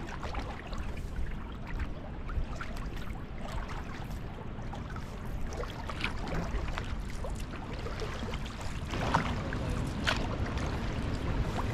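Canoe under way on choppy water: water lapping and trickling along the hull, with a few paddle splashes, over a steady low rumble of wind.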